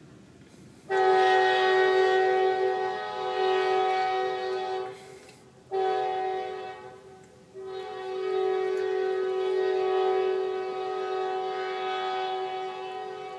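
Diesel locomotive air horn sounding three blasts: a long one starting about a second in, a short one just after the middle, and a final long one held out.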